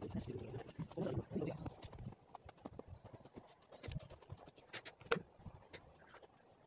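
Dry grass and pine needles rustling and crunching under hands and feet as the ground is worked and walked on, with a few sharp knocks about four and five seconds in. A small bird gives three short high chirps about three seconds in.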